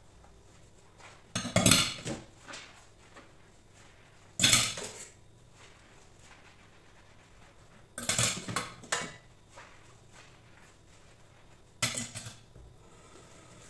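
Cutlery and a pot clinking and clattering against a stainless-steel sink during hand dishwashing with a soapy sponge, in four short bursts with quiet between.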